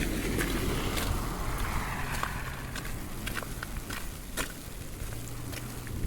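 Street traffic on a wet, slushy road: tyre hiss and rumble from a passing vehicle, fading after about two seconds, with scattered light ticks throughout.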